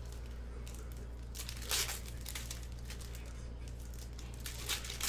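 Trading-card pack wrappers being torn open and crinkled by hand, in short bursts. The loudest comes about a second and a half in and another near the end, over a steady low hum.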